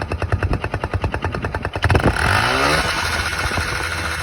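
Yamaha 155 cc single-cylinder motorcycle engine with an aftermarket exhaust-type silencer, running with rapid even exhaust pulses, then revved about two seconds in, its pitch climbing and holding at a loud high note.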